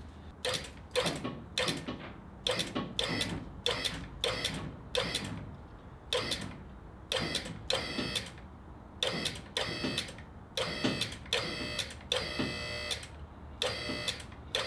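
QuickJack 5000TL hydraulic power unit's pump motor running in short bursts, about two a second, with one longer run a little before the end, as the raise button on the hand control is tapped to lift the car in small steps.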